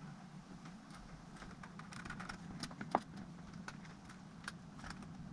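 Light clicks and taps of small plastic and metal laptop parts being handled and fitted, with one sharper click about three seconds in. A faint steady hum runs underneath.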